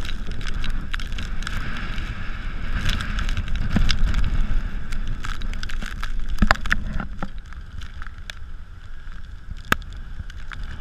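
Gusty wind buffeting the microphone as a low, uneven rumble, with scattered sharp clicks and taps; it eases off about two-thirds of the way through.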